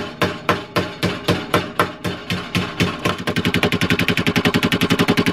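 Small hammer tapping lightly along a sheet-steel lip clamped over angle iron, folding the lip over by hand. The blows are even, about four a second, and quicken to a fast run of about eight a second about three seconds in.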